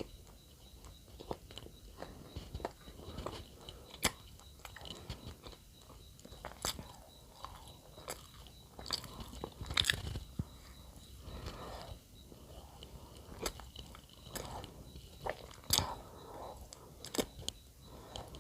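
A person biting and chewing bread close to the microphone: irregular wet mouth sounds and sharp crunchy clicks. The loudest bites come about ten seconds in and again near sixteen seconds.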